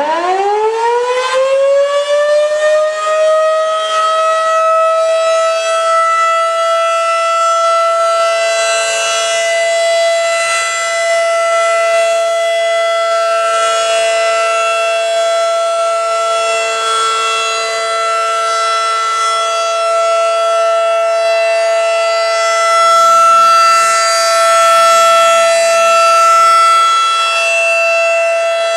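Federal Signal outdoor warning siren winding up, its pitch rising over the first few seconds, then holding one steady, loud tone: the steady Alert signal.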